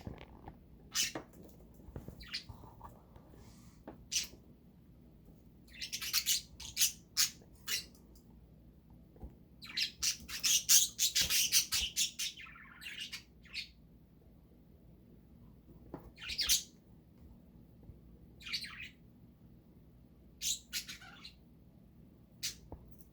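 Pet budgerigars chirping and squawking in scattered short bursts, with a busier stretch of rapid chatter about ten to twelve seconds in.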